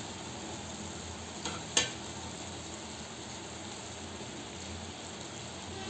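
Okra stir-fry sizzling in a kadhai as a spatula stirs it; the okra is fully cooked and dry. A couple of clinks of the spatula against the pan come a little under two seconds in.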